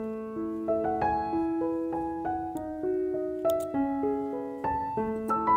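Background music: a gentle solo piano melody, notes struck one after another.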